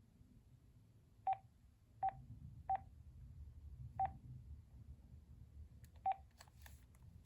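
Key-press beeps from an AT&T E2801 cordless phone handset: five short beeps at one pitch, spaced unevenly, as buttons are pressed one at a time, with a few faint clicks near the end.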